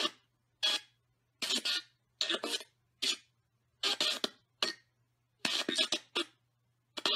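Joe's Box ghost-box app on a tablet playing a stream of short chopped audio fragments, garbled voice and static, roughly one a second with silence between each.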